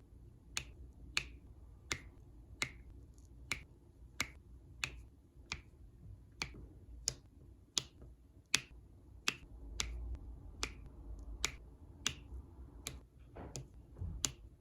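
Diamond-painting drill pen pressing resin drills onto the canvas, a steady run of sharp little taps, about three every two seconds.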